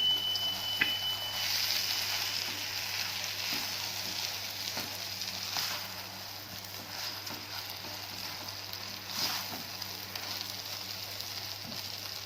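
Rice grains frying in ghee and oil in a pot: a steady sizzle, with a few scrapes of a spoon stirring them.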